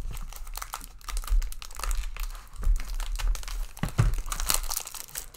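Packaging crinkling and tearing as wrapped padlocks are unwrapped by hand, an irregular crackle throughout, with a dull knock about four seconds in.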